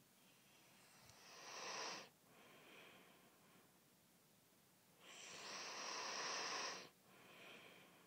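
Snoring: two loud rasping snores about four seconds apart, the second longer, each followed by a softer, shorter breath.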